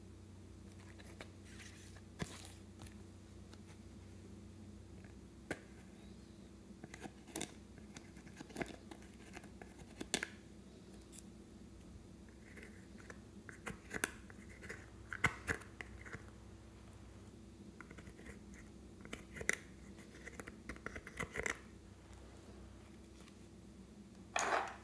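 Small clicks and taps as a glitter eyeshadow palette is handled and opened, then bouts of light scratchy scraping as pressed glitter eyeshadow is scraped out of its pans with a small plastic tool. A faint steady hum runs underneath, and a short louder rustle comes near the end.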